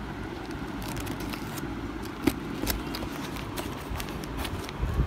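A cardboard parcel being handled and opened with a razor blade: scattered light scrapes and crackles, with a knock about two seconds in and a louder one at the very end, over a steady low background rumble.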